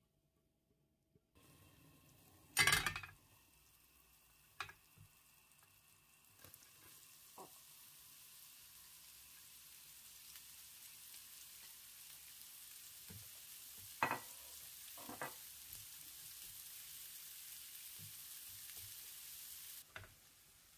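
Shredded cabbage frying in a pan, a soft sizzle that slowly grows louder and then cuts off suddenly near the end. A loud knock comes about three seconds in, with a few lighter knocks and two sharp taps about two thirds of the way through.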